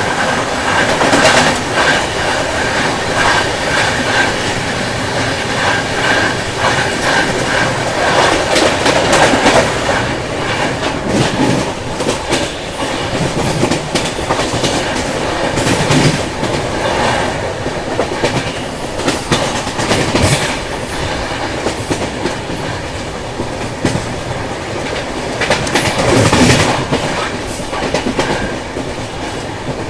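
Indian passenger train coaches running at speed, steel wheels clattering over rail joints in uneven clacks under a steady rushing noise. For the first few seconds the coaches of a second express train rush past close alongside on the adjacent track.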